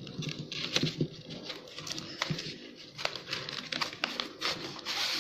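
A sheet of A4 paper rustling and crinkling as it is folded and pressed around rolled-paper tubes, with irregular light clicks and taps.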